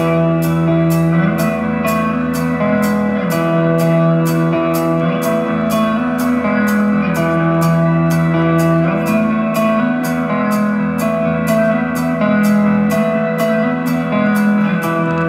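Post-rock band playing live, heard from the crowd: sustained, ringing electric guitar notes shifting between a few pitches over a steady high pulse about three times a second.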